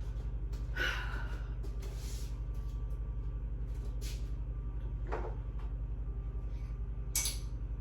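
Kitchen handling noises during breakfast prep: a handful of short knocks and rustles, one like a cupboard door, over a steady low hum.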